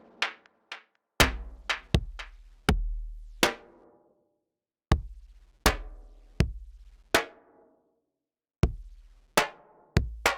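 Sparse electronic drum-machine pattern: deep kick thumps and sharp clicky hits, each with a ringing, pitched tail that dies away. There are two short pauses, at about four seconds and about eight seconds in.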